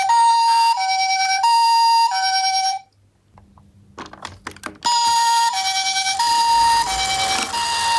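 Toy ambulance minicar's electronic two-tone siren, switching between a high and a low note, each held under a second. It cuts off about three seconds in, a few sharp clicks and knocks follow, and the siren starts again about five seconds in.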